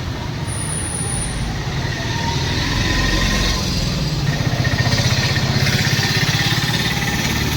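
A motor vehicle engine running close by, a steady low throb over street traffic noise, getting a little louder about three seconds in.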